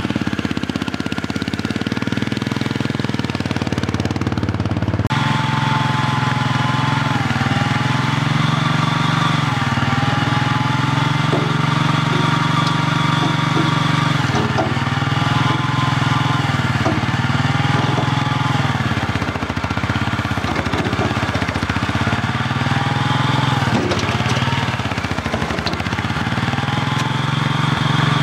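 Small compact loader's engine running steadily, with a higher whine that sags and recovers every couple of seconds as the loader is worked.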